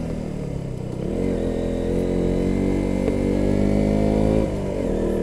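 Motorcycle engine running under way, its pitch climbing as it accelerates about a second in, holding steady, then dropping briefly at about four and a half seconds as the throttle eases or a gear changes.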